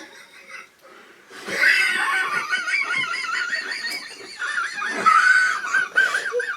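Helpless, uncontrolled laughter, high-pitched and wavering, starting about a second in and carrying on without a break.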